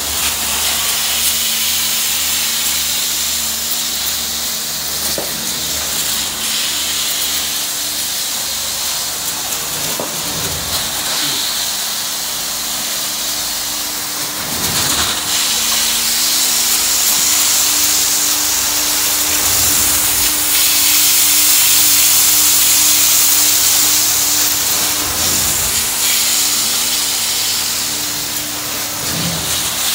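Truck-mounted carpet-cleaning extraction wand drawn across carpet, its hot-water spray and vacuum suction making a loud, steady hiss. A steady low hum runs underneath, with a faint knock every few seconds as the wand is moved.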